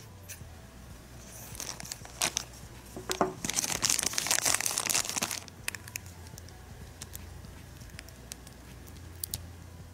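Thin clear plastic bag crinkling and rustling as it is handled, loudest through the middle. Afterwards a few light clicks of hard plastic toy-wand parts being handled and fitted together.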